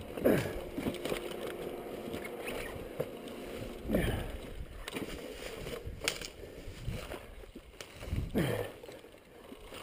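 Mud and muddy water sloshing around a motorcycle's wheel sunk in a mud hole, with several strained grunts or hard breaths that drop in pitch, about every four seconds.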